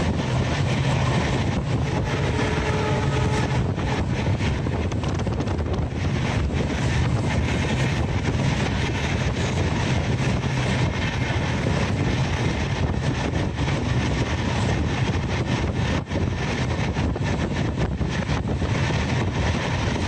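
Steady rumble and rush of a moving express train heard from inside a passenger coach by the window: wheels running on the rails with wind noise, unbroken throughout.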